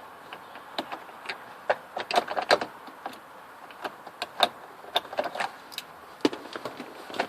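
Irregular sharp clicks and taps of hand tools working on the plastic steering-column trim of a 1998 Chevy Astro, as the screws holding the cover are undone. They come in quick clusters about two seconds and about five seconds in.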